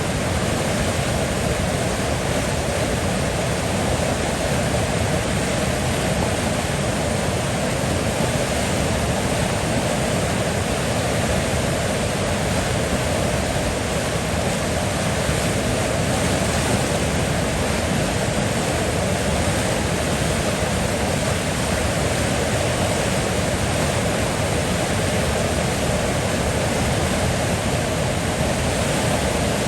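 River water flowing and rushing continuously, a steady even noise with no change.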